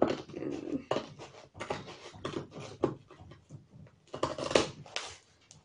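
Large scissors cutting into a cardboard parcel: a run of short rasping snips and scrapes, loudest about four seconds in.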